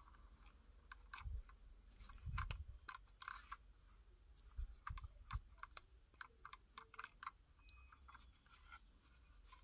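Faint, irregular clicking of a Logitech G502 Hero gaming mouse's buttons being pressed while it is handled, a few clicks a second, with a few soft bumps from the hand.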